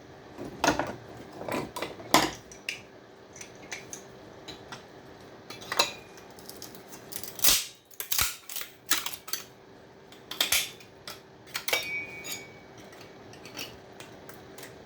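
Irregular metal clinks and knocks as a TV power board and its aluminium heatsinks are handled and worked apart by hand, a few of the strikes ringing briefly.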